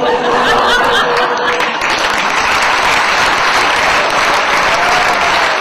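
Audience applauding, with a male choir's last held note sounding under it for about the first second and a half.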